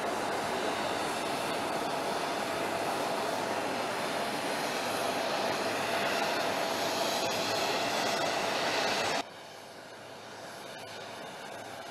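Steady jet noise from a large jet aircraft on the tarmac: an even rush with a steady hum running through it. It cuts off suddenly about nine seconds in, leaving a quieter, even hiss.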